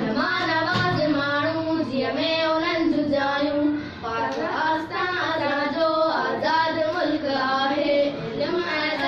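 Two young girls singing a Sindhi poem together in a sing-song chant, with long held notes.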